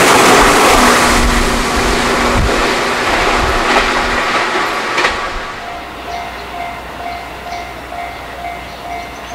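Electric passenger train passing at speed along the platform, with wheel and running noise that fades away over about five seconds. After that, a quieter background with a short ringing tone repeating about twice a second.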